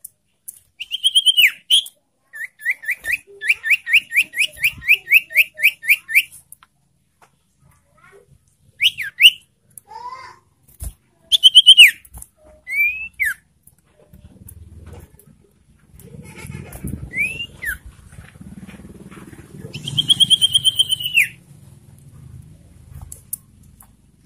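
Common iora calling: loud downslurred whistles, and a rapid run of short whistled notes, about four a second, lasting around four seconds. A low rumbling noise sits under the later calls.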